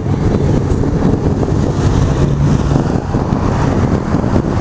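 Car engine running with a steady low rumble, a faint hum coming through about two seconds in.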